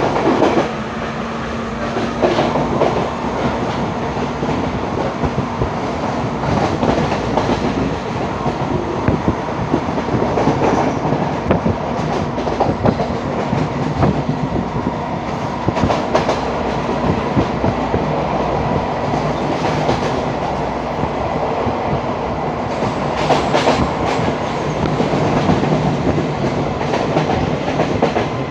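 Express passenger train running at speed, heard at an open carriage window: a steady rumble and rush of air, with the wheels clacking over rail joints every second or few.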